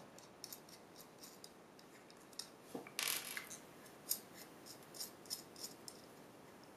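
Faint, irregular light clicks and small metallic knocks from handling a large metal handwheel rotary encoder against its plate, with a short scraping rustle about three seconds in.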